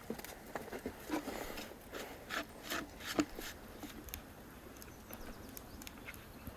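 Irregular scraping and knocking, with a few sharper taps in the first three seconds and fainter scrapes after.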